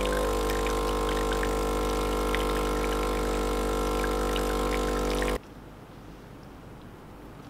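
Espresso machine pump running with a steady, loud mechanical hum while a shot pours, cutting off suddenly about five seconds in and leaving only faint background noise.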